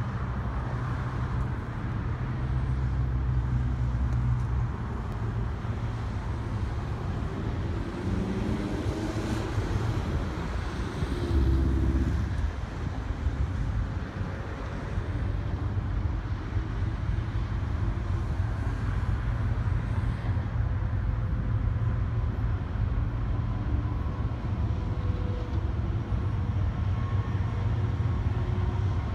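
Distant road traffic with a steady low rumble, one vehicle passing louder about eleven seconds in.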